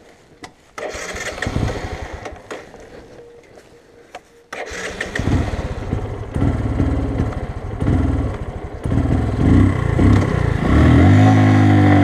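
Bajaj Boxer 150's single-cylinder four-stroke engine being started: it fires about a second in and fades away, then catches sharply midway and runs. Near the end it revs up harder as the motorcycle pulls off up a loose gravel track.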